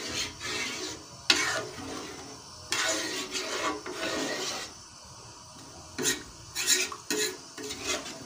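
Metal spoon stirring thick dal gosht and scraping around the inside of a metal cooking pot to clean down its sides, a run of rasping strokes with a sharp clink of spoon on pot a little over a second in.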